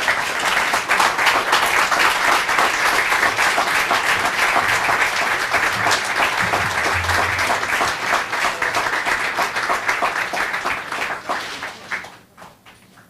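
Audience applauding: a dense round of clapping that dies away about twelve seconds in, with a few last scattered claps.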